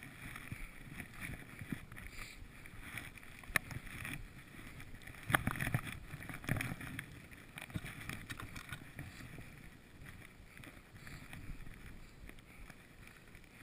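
Skis swishing through deep powder snow during a downhill run, with wind on the microphone. A few sharp knocks stand out, about three and a half, five and a half and six and a half seconds in.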